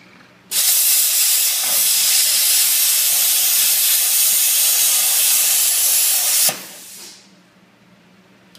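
Plasma cutter cutting: a loud, even hiss that starts abruptly about half a second in, holds steady for about six seconds, then cuts off and fades away briefly.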